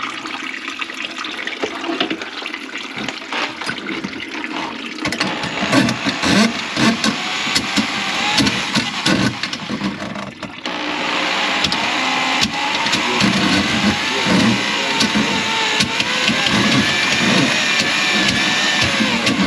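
Water running and splashing in a plugged kitchen sink, then from about halfway through a louder electric motor runs along with it, its pitch wavering as if under changing load.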